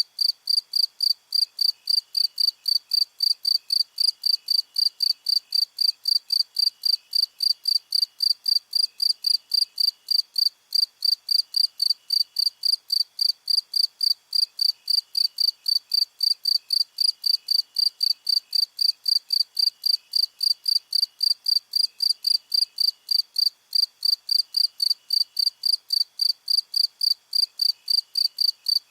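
Cricket chirping in a steady, even rhythm, about three high-pitched chirps a second, with a fainter, lower insect trill coming and going in short runs beneath it.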